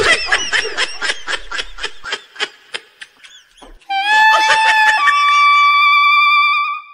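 A comic sound effect of rapid, repeated short chirps, about four a second, fading out over about three seconds. After a brief gap, a brass music cue comes in: a held note that steps up to a higher held note about a second later.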